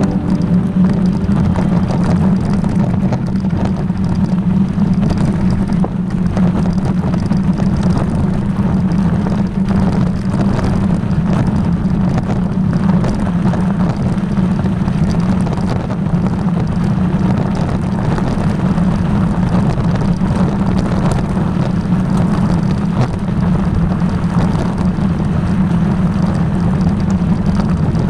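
A vehicle driving, its engine and road noise running steadily and loud throughout with a strong low hum.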